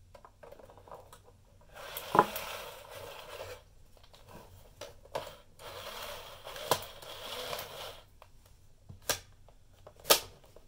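Plastic scraping, rustling and clicks as J batteries are pushed into the Kodak EK6 instant camera's battery compartment and the compartment is pressed shut. Sharp clicks come about two seconds in, around seven seconds, and loudest near the end.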